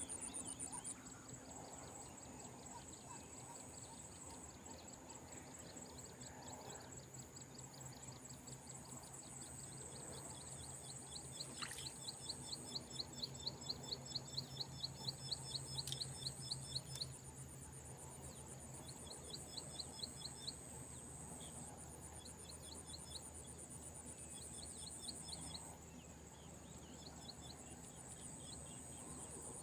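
Faint outdoor insect chorus with a steady high-pitched trill. Over it comes a rapid pulsed chirping call, about four pulses a second, in one long run near the middle and several shorter runs after, over a faint low hum.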